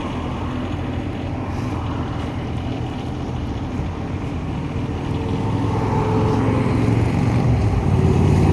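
Road traffic with a vehicle's engine; the engine grows steadily louder over the second half as the vehicle approaches.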